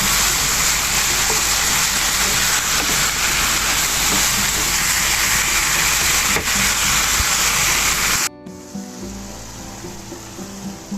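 Food sizzling loudly in a frying pan, a steady hiss, which cuts off abruptly about eight seconds in, leaving soft background music.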